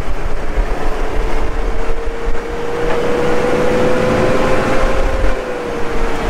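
Humvee with a turbocharged 6.5 L V8 diesel and four-speed automatic under way, heard from inside the open cab: a heavy running rumble with a steady high whine over it that dips slightly about five seconds in.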